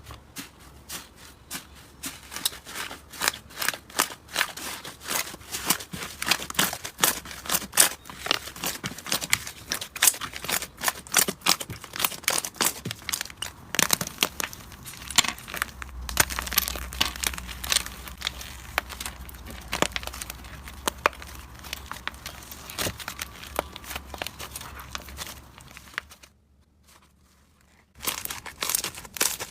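Slime being squeezed, poked and stretched by hand, giving a dense run of sharp crackles and sticky pops; it breaks off briefly near the end, then starts again.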